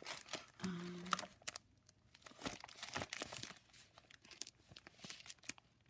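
Clear plastic sleeves and small zip bags of glitter crinkling as they are handled, in faint, irregular crackles and clicks.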